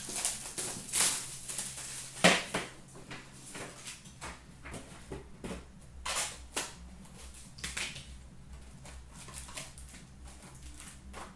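Hands handling a metal collector's tin of trading-card packs and the foil packs in it: a string of sharp clicks and knocks, the loudest about one and two seconds in, with rustling between.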